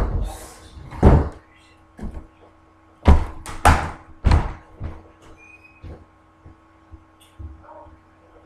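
A series of heavy thuds and knocks: one at the start, a loud one about a second in, then three loud ones in quick succession from about three seconds in, with a few lighter knocks after.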